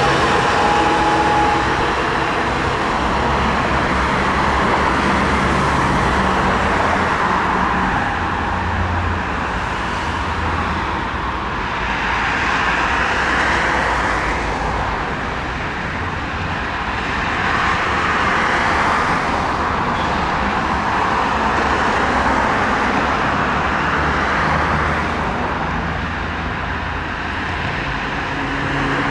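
A train running past, a steady rolling rumble and hiss of wheels on rails that swells and eases several times. A humming tone is heard at the start, fades within the first two seconds, and returns near the end.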